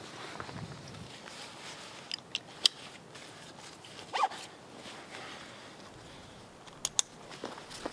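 Backpack buckles clicking shut and straps being cinched: a few sharp clicks about two seconds in, a short zip of webbing pulled through a buckle around four seconds, and two quick clicks near the end.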